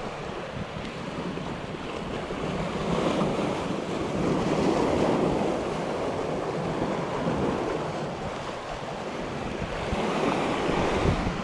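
Sea waves washing and breaking against the boulders of a rock breakwater, swelling louder a few times, with wind on the microphone.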